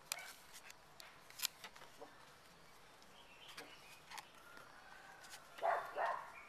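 Scattered light taps and clicks of cardboard packs being handled and set down on a wooden table. Near the end comes a brief voice-like call, the loudest sound.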